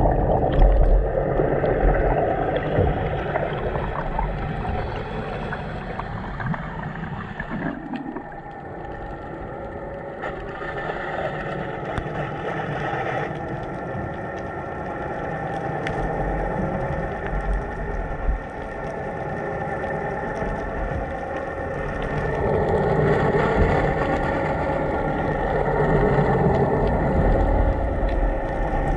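Underwater ambience heard by a submerged camera: a steady, multi-pitched hum of a boat's engine carried through the water. It eases off a little about a third of the way in and grows again later, with faint clicks scattered through it.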